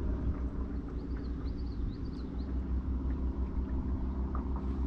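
A steady, low engine hum, even and unchanging, with a few faint high bird chirps between about one and two and a half seconds in.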